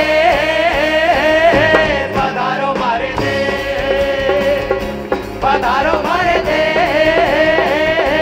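An Indian folk fusion band performing live: singing with a melody that slides between notes, over acoustic and electric guitars.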